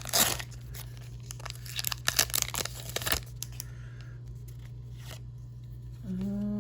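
Foil booster pack wrapper being torn open and crinkled by hand, in a dense run of crackles through the first three seconds, then only faint handling. A steady low electrical hum runs underneath.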